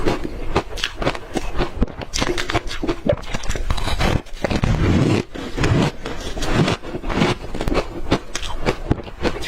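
Close-miked crunching of matcha-powdered ice chunks being bitten and chewed: a dense run of irregular cracks and crackles, with heavier, fuller chewing around the middle.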